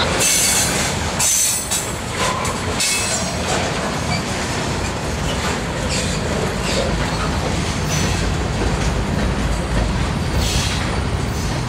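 Covered hopper cars of a Canadian Pacific freight train rolling past: a steady rumble of steel wheels on the rails, with brief high wheel squeals a few times.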